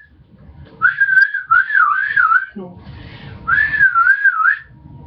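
Whistling: a wavering tone that swoops up and down, in three short phrases with breathy hiss around it.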